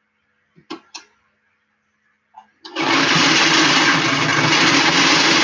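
Electric sewing machine running steadily at speed, stitching a seam, starting about halfway in. Two sharp clicks come about a second in.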